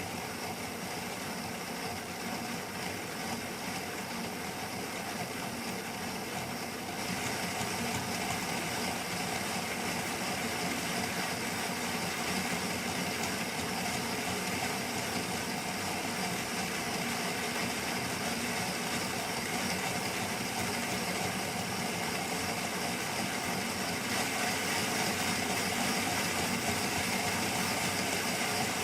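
Model railway locomotive's DCC sound decoder playing a steady engine sound through its small speaker. It steps up louder and brighter about seven seconds in and again near the end.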